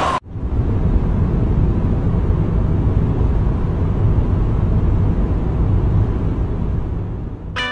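Truck engine sound effect: a steady low rumble as a flatbed lorry drives along, fading slightly near the end as a plucked guitar chord strikes.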